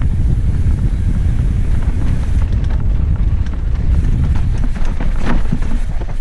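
Wind buffeting the microphone on a fast mountain-bike descent, with the bike's tyres and frame rattling and knocking over rough ground; the knocks come thicker in the second half.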